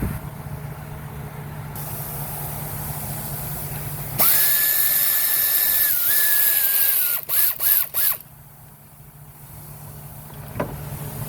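A power driver spinning out the single bolt that holds the camshaft actuator solenoid valve: a steady whine for about three seconds, dipping once, then three short blips of the trigger.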